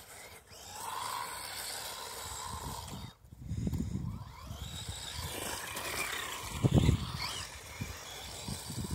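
Brushless RC car motor whining as it drives across grass, its pitch rising and falling with the throttle. Two low rumbles come about three and a half and seven seconds in.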